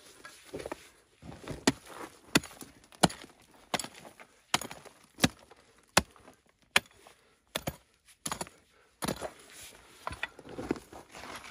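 A pickaxe striking stony soil over and over at a steady pace, about one blow every 0.7 seconds, with loose gravel scraping and rattling between the blows. The blows become looser and more scattered near the end.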